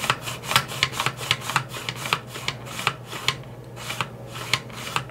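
Hard plastic scraping and clicking as the black landing-gear slide of a 1983 GI Joe Skystriker toy jet is pushed back and forth by hand in its housing, working in fresh grease. The strokes come about three a second, with a brief pause around three and a half seconds in.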